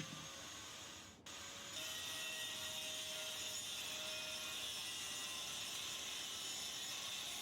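Faint, steady mechanical hiss with a weak hum, cutting out briefly about a second in, then running on evenly.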